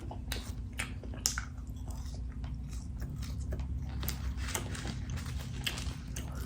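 Close-up chewing: irregular wet mouth clicks and smacks as a person chews a mouthful of food, over a low steady hum.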